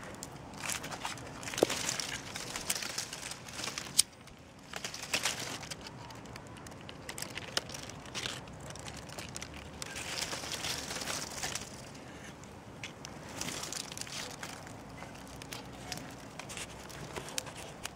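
Bonfire of dead, frost-killed citrus plants crackling, with irregular snaps and pops; two sharp snaps stand out, about one and a half and four seconds in.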